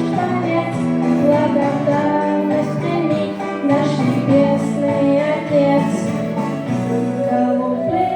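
A song with a sung melody, a child's or woman's voice over a plucked guitar accompaniment.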